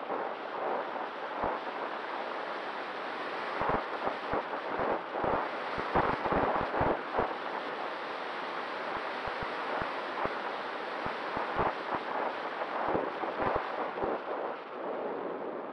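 Wind rushing over the microphone of a camera mounted under the wing of an E-flite Conscendo Evolution RC glider, gliding with its folding propeller stopped. Gusts buffet the microphone in many short thumps, thickest from about four to eight seconds in.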